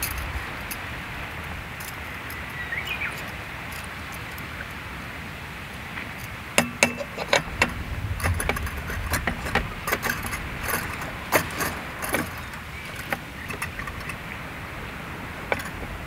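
Small folding canister gas stove being screwed onto its gas cartridge and its metal pot supports flipped out: a run of light metallic clicks and clinks, starting about six seconds in, over a steady background hiss.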